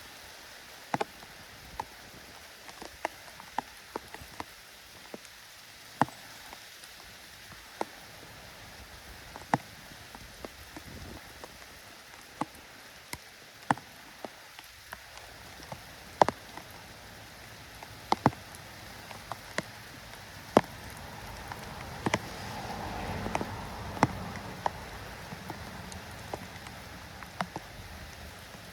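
Light rain with a steady hiss, and single raindrops ticking sharply on a surface close to the microphone, irregularly, roughly one a second. A soft swell of lower noise rises and fades about two-thirds of the way through.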